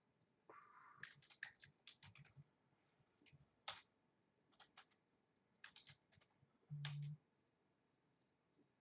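Faint typing on a computer keyboard: irregular keystrokes and clicks in short runs. A brief low buzz sounds about seven seconds in.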